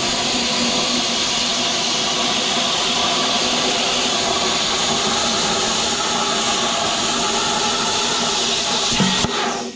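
Plasma cutter cutting through quarter-inch steel, turned all the way up, with air at about 55 PSI: a loud, steady hiss of the arc and air jet. It cuts off abruptly near the end as the cut is finished.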